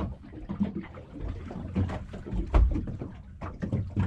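Irregular low rumbling and scattered knocks aboard a small boat at sea, the loudest a low thump about two and a half seconds in.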